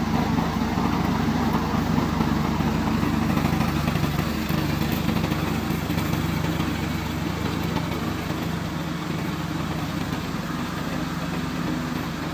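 Gasoline engine of a remote-controlled lawn mower running steadily at a constant speed, getting slightly quieter toward the end.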